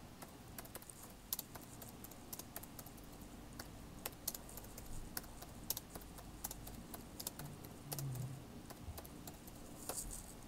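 Faint, irregular typing on a computer keyboard, key clicks scattered throughout.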